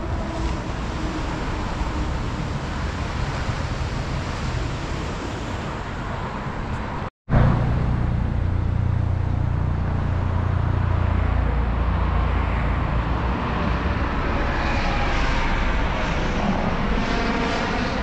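Steady noise of road traffic passing. The sound cuts out completely for a split second about seven seconds in, then comes back with a heavier low rumble for a few seconds.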